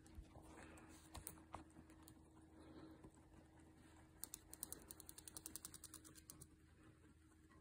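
Guinea pigs crunching dry pellets at a food bowl: a faint run of quick clicks, about eight or nine a second, for a couple of seconds past the middle.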